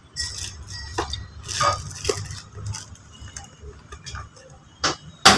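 Small metal shock-absorber parts (washers, bushes and seal rings) clinking and clicking as they are handled by hand and set down, at irregular intervals, with the loudest sharp click near the end.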